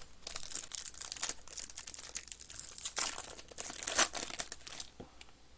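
Crinkling and rustling of trading-card packaging and cards being handled, a dense run of short crackles that thins out after about four seconds.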